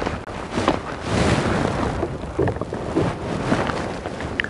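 Wind and rustling on the microphone, with scattered small knocks, as a freshly landed largemouth bass is handled in a kayak.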